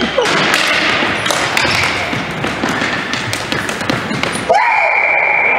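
Ball hockey play in an echoing gymnasium: sticks and the ball tapping and thudding on the hardwood floor under indistinct players' voices. About four and a half seconds in, a steady high-pitched tone starts and holds.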